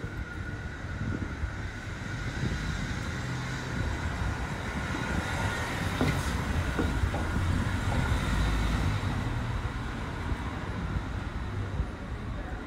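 A large engine running with a steady low rumble and a faint steady whine. It grows louder toward the middle and eases off toward the end.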